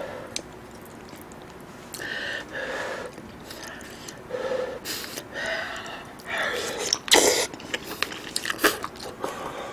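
Close-miked eating of beef bulgogi hot pot: wet chewing and slurping noises with breathy puffs, coming in separate bursts, the loudest a little after seven seconds in.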